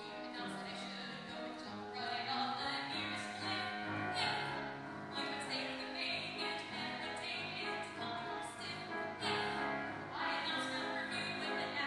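Mezzo-soprano singing a Broadway show tune with grand piano accompaniment.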